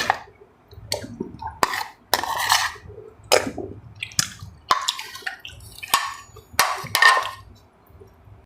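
Eating sounds: wet slurps and chewing, with sharp clinks of spoons and chopsticks on bowls, several times over.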